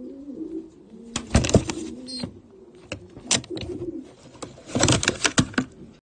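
Domestic pigeons cooing in a loft, their wavering low calls running on throughout. Cut through by loud, sharp bursts of flapping wings, about a second in, a few times in the middle, and in a dense flurry near the end.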